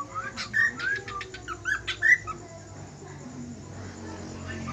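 Cockatiel whistling and chirping: a quick run of short rising and falling whistled notes mixed with sharp clicks, easing off about halfway through.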